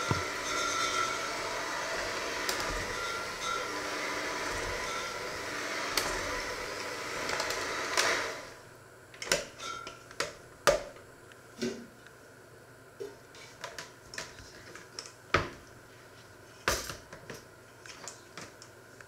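Electric hand mixer running with its beaters in a thick mixture in a stainless steel bowl, switched off about eight seconds in. Then scattered knocks and clatter as the bowl and mixer are handled and set down.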